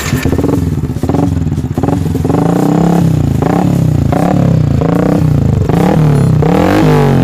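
Yamaha New Vixion's single-cylinder engine running through an aftermarket DBS-replica racing exhaust, the throttle blipped again and again so the revs rise and fall about every two-thirds of a second.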